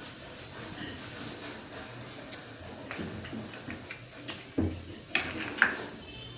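Kitchen handling sounds over a steady hiss: a few light clicks and taps, then three sharper knocks in the last two seconds.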